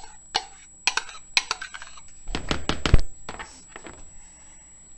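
A spoon scraping and knocking against a ceramic bowl as thick condensed soup is scooped out into a mixing bowl. It makes a run of scattered clicks and taps, and the loudest knocks bunch together about two and a half to three seconds in.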